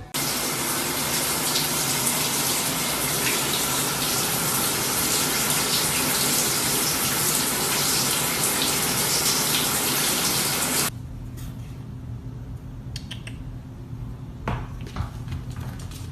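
Water running steadily, as from a tap, then cutting off abruptly about eleven seconds in. After that a few faint light knocks follow.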